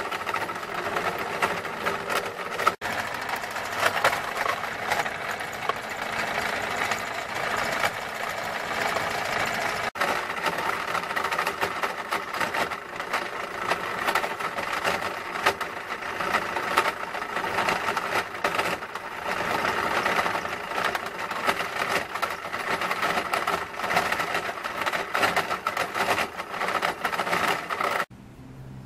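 Homemade jaw rock crusher, driven by an electric motor through a V-belt, running and crushing quartz gold ore: a steady mechanical clatter thick with the crackle of breaking rock. It cuts off abruptly near the end.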